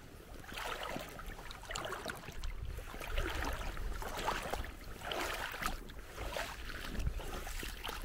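River water lapping and splashing close to the microphone in irregular surges, with a low rumble of wind on the microphone that grows near the end.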